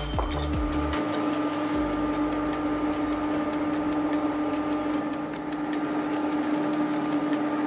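Steady electrical hum with a held tone from an induction hob heating a stainless saucepan of broth, over the faint crackle of the broth simmering.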